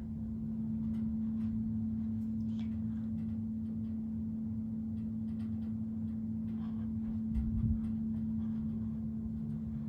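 Hampton Bay ceiling fan running with a steady motor hum and a low rumble, and faint ticks now and then. A soft low thump about seven and a half seconds in.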